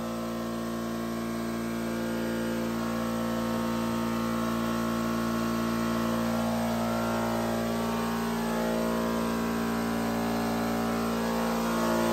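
Steady machine hum at a fixed pitch, slowly growing louder, with a small change near the end.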